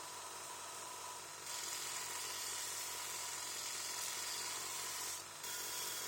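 A steady hiss that grows louder about one and a half seconds in and drops out briefly near the end.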